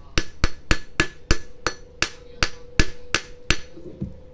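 Combination pliers used as a hammer, tapping rapidly on a power MOSFET's plastic package to crack it open: a quick run of about fifteen sharp taps, about four a second, then a duller, heavier knock near the end.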